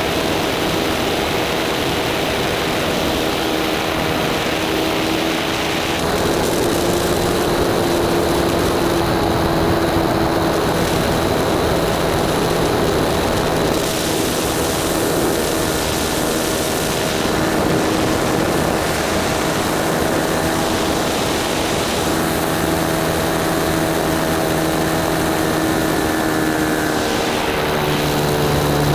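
Single-cylinder 1.20-size nitro glow engine of an RC sport plane running at high throttle, heard close up from behind the engine. Its note is loud and steady, with small shifts in pitch as the plane manoeuvres.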